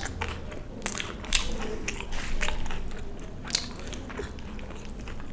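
Close-miked eating: a person biting and chewing food, making a string of irregular wet mouth clicks and smacks.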